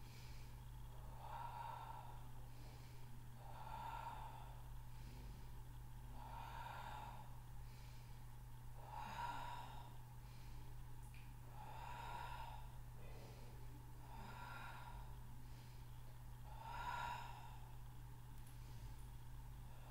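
A woman's breathing during a Pilates abdominal exercise: seven short, hard exhalations, about one every two and a half seconds, in a steady rhythm. A steady low hum runs underneath.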